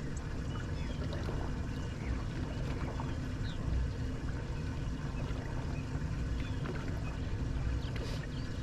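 Fishing boat on the water: a steady low rumble with water noise and no sharp events.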